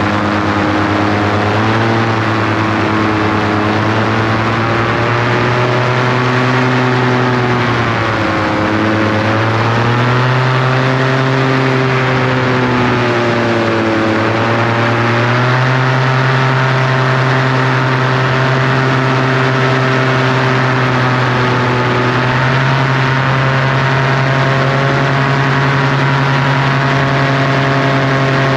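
An engine running steadily and loudly, its pitch dipping and rising a few times in the first half before settling into an even drone.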